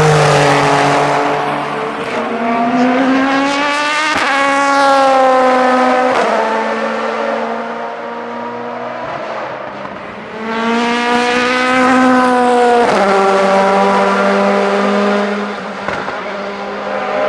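Prototype race cars accelerating hard past the track, each engine note climbing in pitch and dropping at upshifts every couple of seconds. One car fades away, and another comes in about ten seconds in and runs up through the gears.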